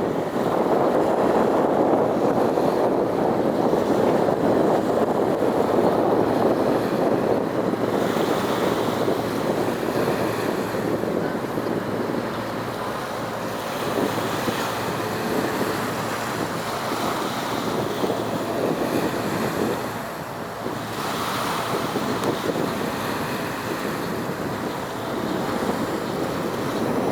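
Steady rushing of wind on the microphone and water, with no distinct events.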